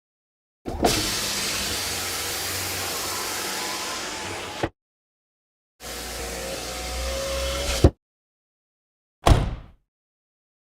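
A series of separate car sound effects. Two stretches of steady car-engine running noise each cut off abruptly, the second ending in a sharp click, followed by a single short thump.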